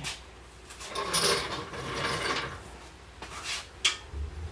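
Scraping and a few sharp metal clicks and knocks as the bare car chassis is shifted and propped on jack stands.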